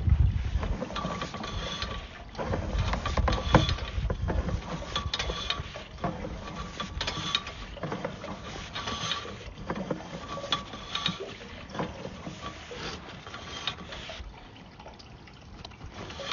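Irregular clattering and knocking with a rushing noise, from a sewer inspection camera's push cable and reel being worked through the line. It is busiest in the first few seconds and eases off toward the end.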